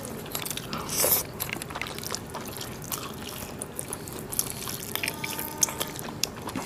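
Eating with the hands: fingers mashing and mixing rice with mutton kosha gravy on plates, with many short wet clicks and mouth sounds from eating, and a louder burst about a second in.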